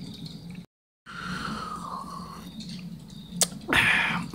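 A man's short breathy sigh near the end, over a steady low hum, with a single click shortly before it.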